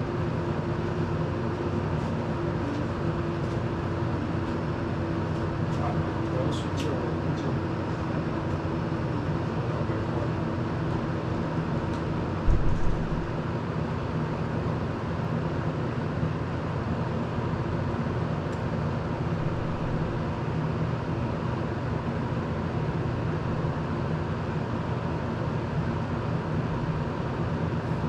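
Desk circulator fan running, a steady rushing of air close by; a brief low thump about halfway through.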